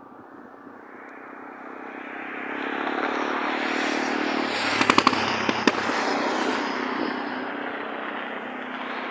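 A vehicle driving past on the road. It swells to its loudest about halfway through and then slowly fades, with a few sharp clicks at the loudest point.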